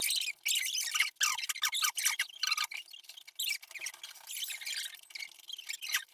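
Close-up eating sounds: wet chewing, smacking and slurping of sanfan cornmeal mush, a dense run of irregular small clicks and crackles.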